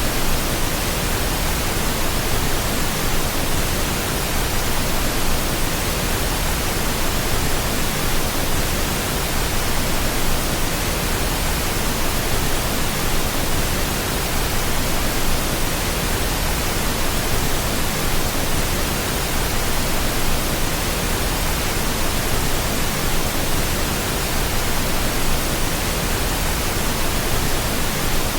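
Steady pink noise: an even, unchanging hiss with a full, deep low end, played continuously as a sleep sound.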